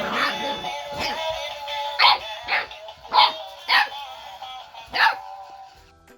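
Boxer puppy barking, about seven short, sharp barks spread over a few seconds, over music.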